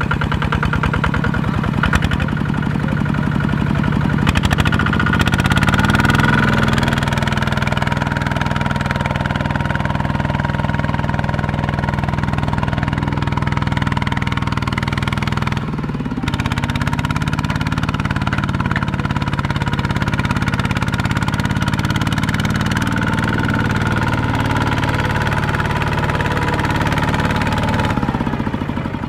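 A two-wheel walking tractor's single-cylinder diesel engine pulling a loaded trailer through mud: it revs up a few seconds in and then runs steadily under load. There is a brief break about halfway, and the engine slows near the end.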